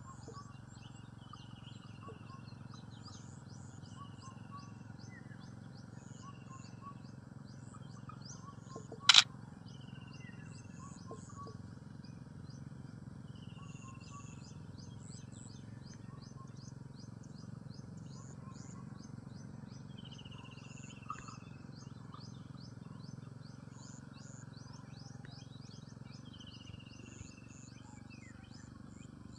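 Outdoor bird chorus: continuous fast, high chirping, with one bird repeating a short falling call every few seconds over a steady low rumble. About nine seconds in comes a single sharp, loud click from a phone camera shutter.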